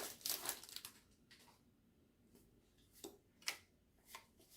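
Faint rustle of a foil booster-pack wrapper dying away in the first second, then a few soft clicks of trading cards being handled.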